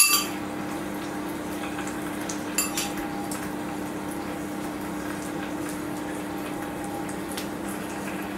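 A metal utensil clinks against a dish with a short ring, once at the start and more lightly about two and a half seconds in, over a steady kitchen hum.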